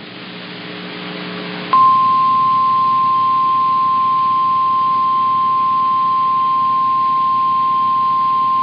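NOAA Weather Radio's single-tone warning alarm, a steady pure tone near 1 kHz, starting abruptly after about a second and a half of low hum and hiss and holding unbroken. It is the attention signal that comes before a National Weather Service warning broadcast.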